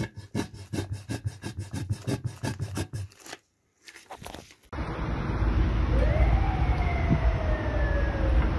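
Gear oil glugging and gurgling out of a squeezed plastic bottle through its spout into a BMW E34 differential's fill hole, with a short pause. About four and a half seconds in, this cuts suddenly to the low, steady rumble of the E34 moving on the street, with a whining tone that rises quickly and then slowly falls.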